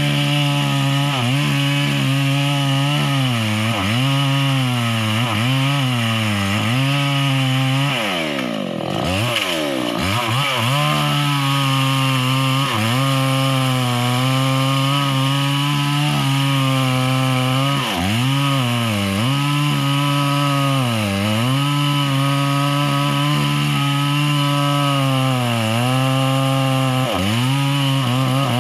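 Chainsaw cutting into the trunk of a tall standing tree to fell it, running steadily with its engine pitch dipping under load every second or two and picking back up. About eight seconds in it drops low and then revs back up.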